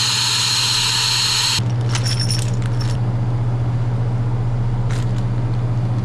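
Brazing torch flame hissing against a copper tube stub on a hermetic refrigeration compressor, unbrazing it, then cutting off about a second and a half in. A few metal clinks follow as the compressor is handled, over a steady low hum.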